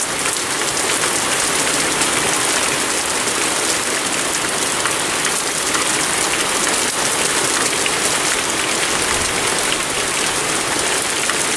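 Heavy rain pouring down steadily, an even hiss of rain falling on roofs and garden foliage.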